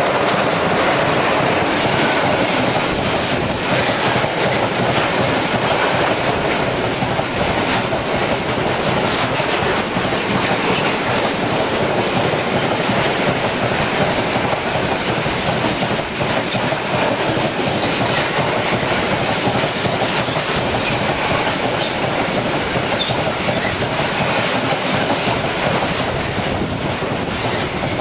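Long freight train of bogie hopper wagons, double-headed by DB class 151 electric locomotives, passing close at speed. Steady loud rolling noise with a rapid, irregular run of clicks and knocks from the wheels over the rail joints.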